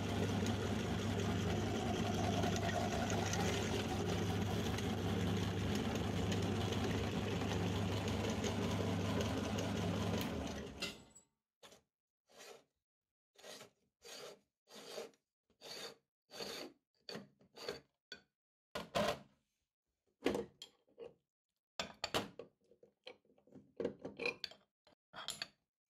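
Meat grinder running steadily with a constant low hum as it grinds banana, stopping suddenly about ten seconds in. Then a string of short, irregular handling noises as the grinder's front ring, cutting plate and knife are taken off.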